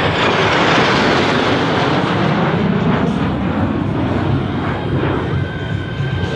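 USAF Thunderbirds F-16 Fighting Falcon jets flying past with a loud jet roar. The roar peaks in the first couple of seconds, its pitch falling as they go by, then eases off.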